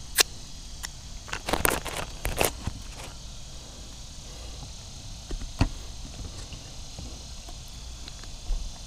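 Scattered light clicks and taps of eating utensils and dishes being handled during a meal, thickest between about one and two and a half seconds in. Under them runs a steady, faint high chirring of insects.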